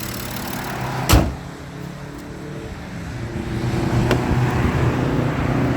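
BMW 335d's twin-turbo diesel engine idling with the hood open, with a sharp click about a second in and a smaller one a few seconds later; the engine note grows louder and fuller about halfway through.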